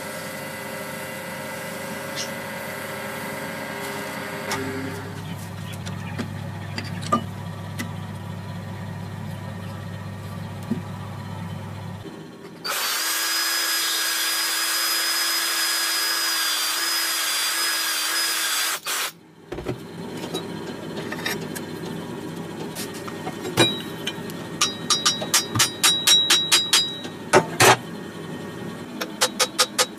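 A cordless drill runs at one steady speed for about six seconds midway, the loudest sound. Before it comes a steady low hum from a small wood lathe running; after it come scattered knocks and runs of rapid clicking.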